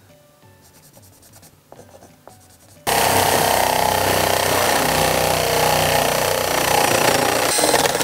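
Power drill boring a 32 mm spade bit into oak. It starts abruptly about three seconds in and runs steadily, the bit working hard through the hardwood. Before it there are a few faint ticks and scratches.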